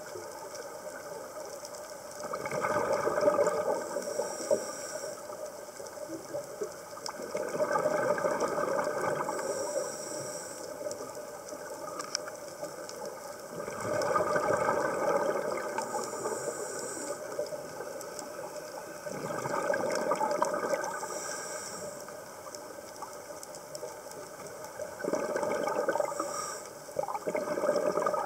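Scuba diver breathing through a regulator underwater. Five bursts of exhaled bubbles come about every five to six seconds, each followed by a short high hiss from the regulator.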